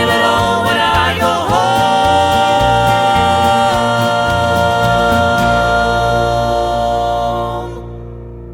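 Gospel vocal group singing the final notes of the song, settling into one long held chord that fades away near the end.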